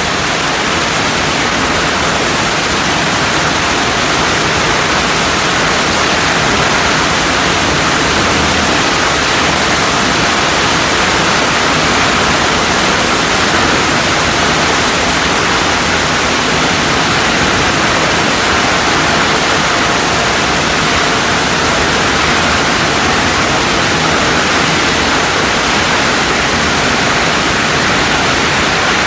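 LZ30-65-1530J sand washing machine running, a steady, loud rushing noise of water and wet sand being churned, unchanging throughout.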